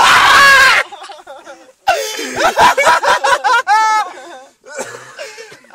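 Several young men laughing hard. It begins with a very loud, distorted burst that overloads the microphone, then breaks into choppy fits of laughter.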